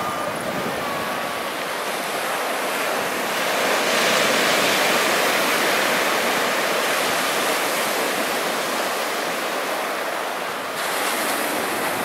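Small sea waves breaking and washing up a sandy beach: a steady rush of surf that swells about four seconds in and shifts abruptly near the end.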